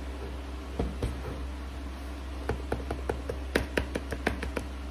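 Hands handling a cardboard OnePlus 9RT phone box: two light taps about a second in, then a quick run of sharp clicks and taps lasting about two seconds, over a steady low hum.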